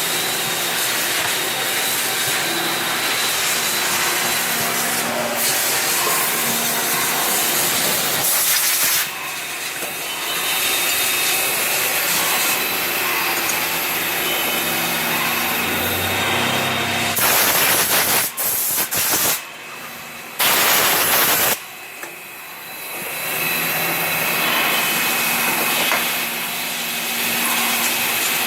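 CNC machine running with a steady hissing machining noise and faint whining tones. About two-thirds of the way through come several loud, abrupt hissing blasts, each cutting off suddenly.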